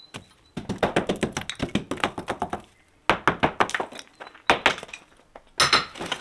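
Hammer and crowbar knocking on wood, quick runs of thunks in several bursts, as wooden wedges are knocked out of the frame of an old brick doorway.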